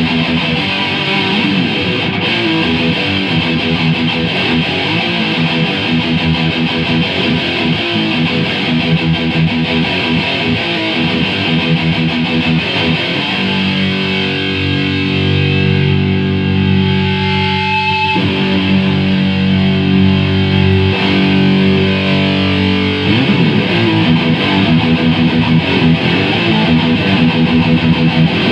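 Heavily distorted electric guitar played through an S&K VHD preamp into an Acoustic 833 power amp, showing big bass, bright highs and dull mids: chugging riffs, with long held chords ringing for several seconds about halfway through before the riffing resumes.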